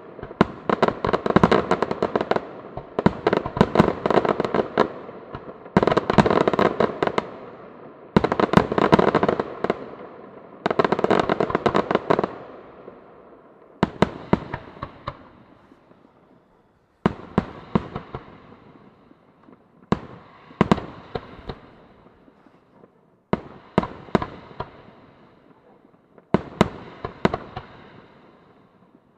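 Aerial firework shells bursting in volleys of bangs with crackling tails, dense clusters every two to three seconds; about halfway through they thin to single sharper reports roughly every three seconds, each crackle fading out before the next.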